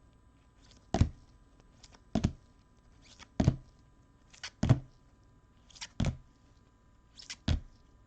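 Trading cards being set down one after another on a table: about seven sharp taps, roughly one a second, each with a faint light rustle of card just before it.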